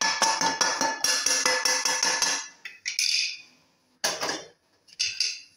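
Wooden spatula scraping and tapping roasted spice powder off the edge of a pan into a steel mixer-grinder jar: a quick run of taps and scrapes for about two and a half seconds. A few short clinks of steel follow.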